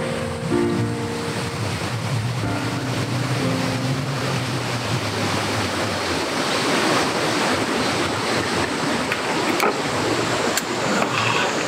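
A dense, steady chorus of cicadas droning, growing fuller after the first few seconds. A few soft held musical notes sound over it at the start, and two short clicks come near the end.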